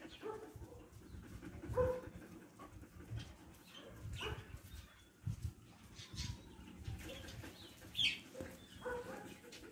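Dogs making short, high-pitched calls every second or two, the strongest about two seconds in and near the end, over low irregular thumps.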